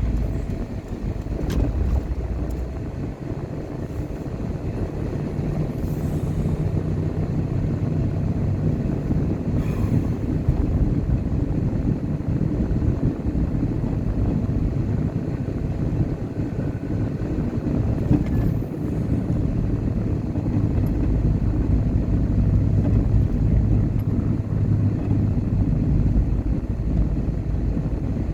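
A car driving on the road: steady engine and tyre rumble, with the engine's pitch shifting now and then.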